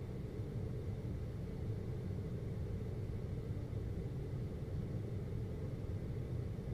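Air conditioner running: a steady low hum with a faint high tone over it.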